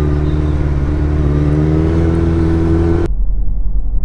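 Suzuki Hayabusa's inline-four engine running at low, fairly steady revs while riding, its pitch creeping up slightly. About three seconds in, the sound cuts abruptly to a dull, muffled low rumble.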